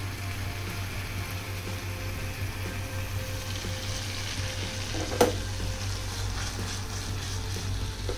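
Paneer and onion gravy sizzling as it fries in a pan, with a steady hiss. A single sharp click sounds about five seconds in.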